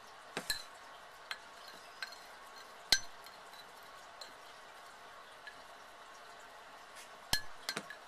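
Metal spoon clinking and scraping against a ceramic mug as cookie dough is scraped down from the sides and pressed down. A few scattered clinks come first, then a quiet stretch, then a quick run of clinks near the end.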